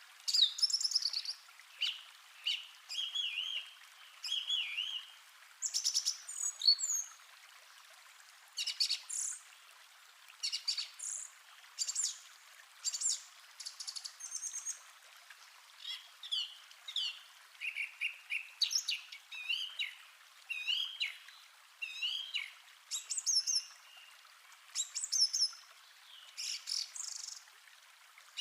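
Songbirds singing in a forest: a steady run of short chirps, whistles and trills, a new phrase about every second, over a faint steady hiss.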